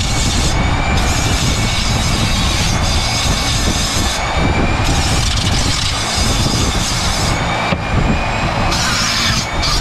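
Flex-shaft rotary tool running at high speed with a steady, slowly rising whine while its bit carves cork, the hiss of the cut dropping out and returning as the bit is lifted and set back on the cork.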